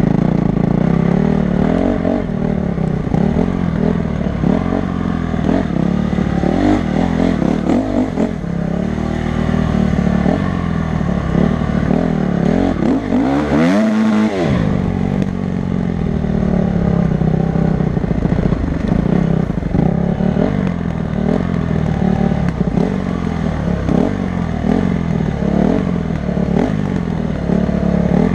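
Honda CRF250 dirt bike engine under way, revving up and down continuously as the bike is ridden over rough ground, with a sharp rev rising and then falling about halfway through. The bike rattles over the bumps.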